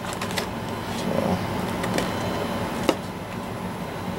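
Steady background hum of room tone, with a few faint light clicks.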